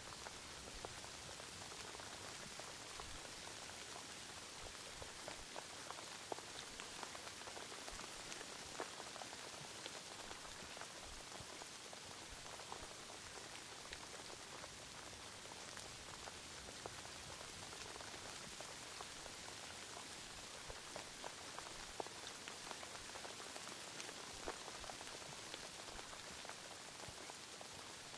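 Steady rain: an even hiss with many single drops ticking through it.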